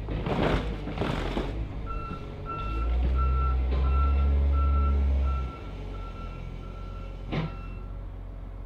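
Wheel loader's backup alarm beeping about twice a second while its engine runs, revving up hard for a couple of seconds in the middle and then dropping back. Two short hissing bursts come near the start.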